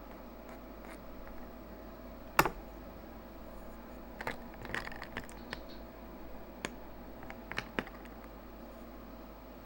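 Kitchen things being handled: one sharp knock about two and a half seconds in, then scattered light clicks and taps, over a steady low hum.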